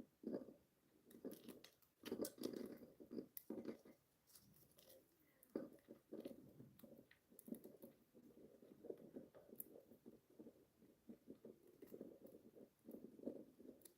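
Budgies pecking and crunching: a faint, irregular run of small crunches, taps and scrapes, with no chirping.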